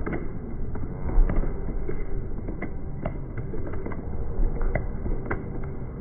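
Noise of a large outdoor crowd, a steady din with scattered sharp clicks and a few low thumps, one about a second in and another near the end.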